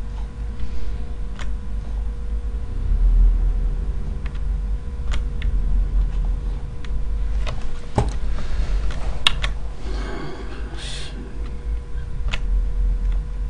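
Computer keyboard and mouse clicks, scattered single clicks with a busier run of clicking about two-thirds of the way in, over a steady low hum.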